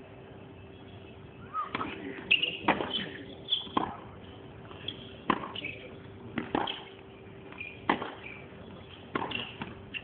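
Tennis ball being struck, about seven sharp hits spaced a little over a second apart, over a steady hum.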